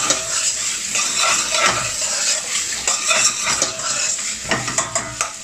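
Chopped onions sizzling as they fry in hot oil, with a spoon stirring them and scraping and clicking irregularly against the pan.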